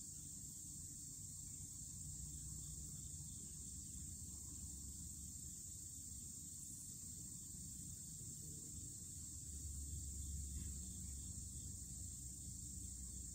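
Faint outdoor background: a steady high insect drone over a low rumble that swells for a moment about ten seconds in.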